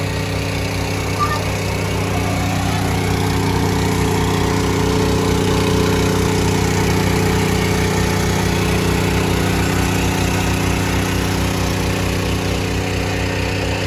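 An engine running steadily at an even speed, with a low, even pulsing throb.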